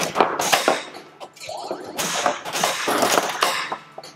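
Williams White Water pinball machine in play: a burst of crashing, hissing noise with sharp knocks through it, a short lull about a second in, then a second burst that dies down near the end.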